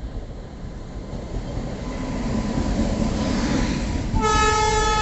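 A train approaching, its running noise growing steadily louder. About four seconds in the locomotive's horn starts a long, steady blast.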